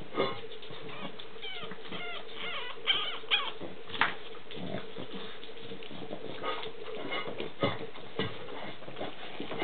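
Boston terrier puppies squeaking and whimpering in short, high, wavering calls, most of them in the first few seconds. Several sharp knocks are scattered through it.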